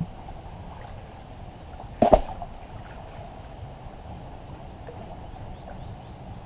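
Faint water sloshing from people wading in a muddy fishpond, with one sharp knock about two seconds in.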